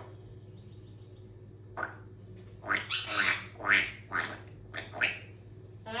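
African grey parrot vocalizing: one short call a little before two seconds in, then a quick run of about six chattering calls with sliding pitch over the next few seconds.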